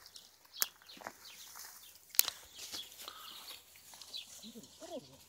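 A plastic bag rustling, with two sharp clicks, as puppies push their noses into it. A few short rising-and-falling animal calls come near the end.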